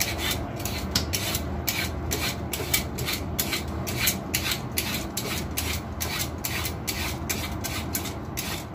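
Skin being scraped off a young green papaya with a blade in short, repeated peeling strokes, about two or three a second.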